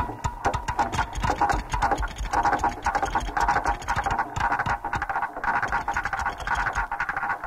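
Rapid, irregular clicking and clattering over a buzzing tone, like a ticking mechanism. From a little after two seconds in, the buzzing grows stronger.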